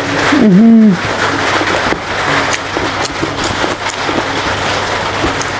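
Steady rain hiss, with small wet clicks and smacks of rice being mixed by hand and chewed. A short hummed "mmm" with a dipping pitch comes in the first second.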